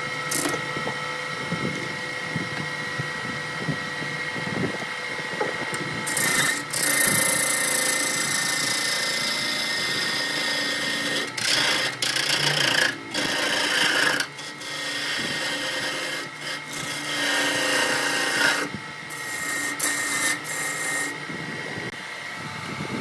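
Wood lathe spinning a large log blank while a hand-held gouge cuts into it. The cutting noise comes in long loud spells from about a quarter of the way in, breaking off briefly several times, over the steady hum of the lathe.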